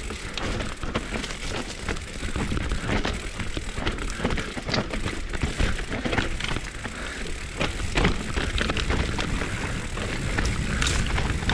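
Mountain bike riding down a wet forest trail: tyres rolling over wet dirt and fallen leaves, with a steady low rumble and irregular clattering knocks from the bike over the rough ground.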